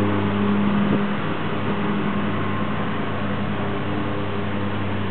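A motor or engine running steadily nearby, a constant even hum, with a short knock about a second in.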